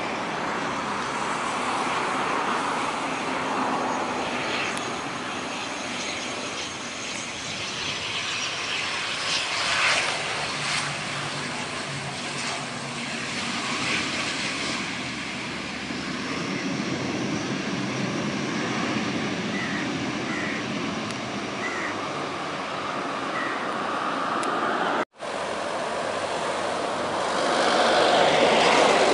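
ATR 72 twin-turboprop airliner landing and rolling out, its engines and propellers running steadily. After a sudden cut near the end, a business jet's engines run louder.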